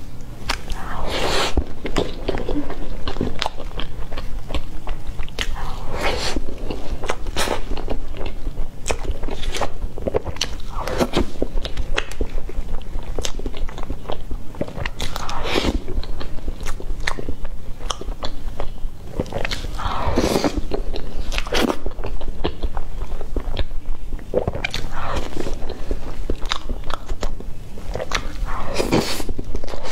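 Close-miked eating sounds of cream cake being bitten and chewed, wet mouth noises with many sharp clicks scattered throughout.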